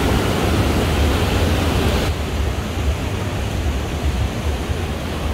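Water pouring over an overflowing reservoir spillway, a steady loud rush. About two seconds in it changes abruptly to a duller, quieter rush with less hiss.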